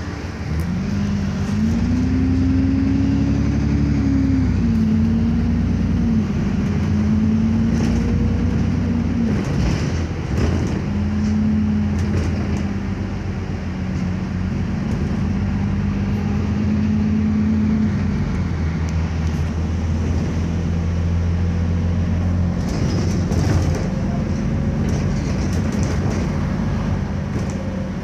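Alexander Dennis Enviro400 double-decker bus's diesel engine heard from inside the passenger saloon as the bus pulls away and accelerates. The engine note climbs and drops several times with the automatic gearbox's gear changes, then holds a steady loud drone while cruising, with a few brief interior rattles.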